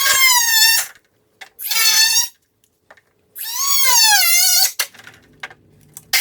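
A tool squeaking against the carbon/kevlar underbody panel as a cut is transferred from a template: three high, wavering squeaks, each about a second long, with short gaps between them.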